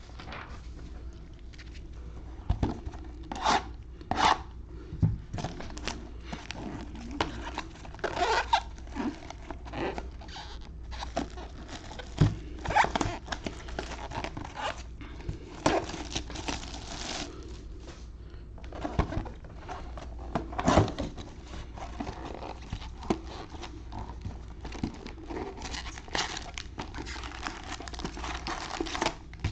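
Trading-card box packaging being torn open and handled: irregular short rips, scrapes and crinkles of wrapper and cardboard.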